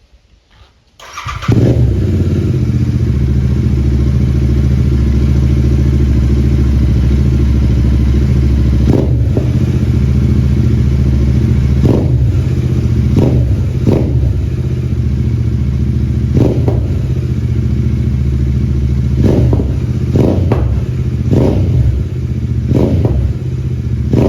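Royal Enfield 650 parallel-twin motorcycle engine starting about a second in, then idling steadily through its exhaust. It is given short throttle blips, about ten of them, coming more often toward the end.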